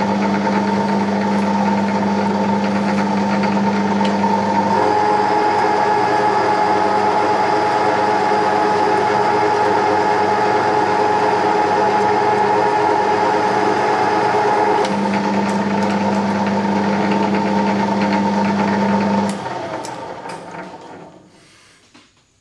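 Centre lathe running under power while taking a 20 thou-deep straight plunge thread-cutting pass on the cross slide: a steady machine hum whose note changes for about ten seconds in the middle. About nineteen seconds in it is switched off and runs down to quiet.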